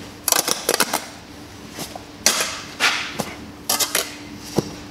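Steel bricklaying trowel spreading and scraping a mortar bed along the top of a course of bricks: a few gritty scraping strokes, with light clicks of the blade on the brick between them.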